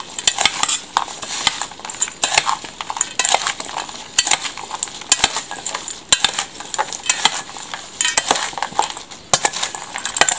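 Metal spoon stirring a wet mix of diced apples, sugar and cinnamon in a stainless-steel bowl: a moist squelching churn with irregular clinks and scrapes of the spoon against the bowl.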